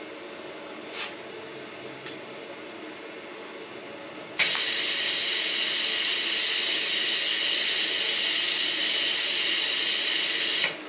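TIG welding arc held for about six seconds at around 80 amps to spot-weld two overlapping steel sheet plates: a steady, loud hiss that starts abruptly about four seconds in and cuts off sharply near the end.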